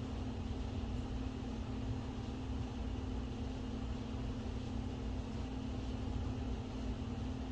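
Steady mechanical hum with a constant low drone and an even hiss over it, like an air conditioner or fan running in the room; it does not change.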